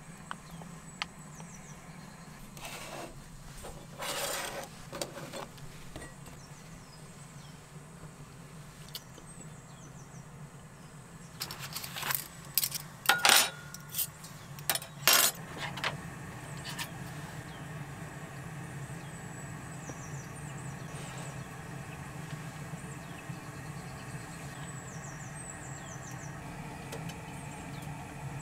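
Metal cutlery clinking and rattling as utensils are drawn from a fabric cutlery roll, a run of sharp clinks about halfway through, over a steady low hum. Softer handling rustles come earlier, and faint high chirps come near the end.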